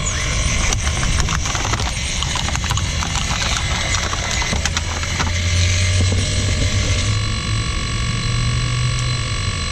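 RC excavator running, its motors giving a steady whine of several tones, with a run of clicks and crackles over the first five seconds and a low hum joining about halfway through.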